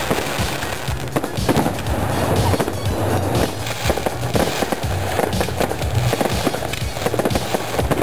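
Fireworks display going off in a rapid barrage, many shells bursting and crackling in quick succession, with music playing underneath.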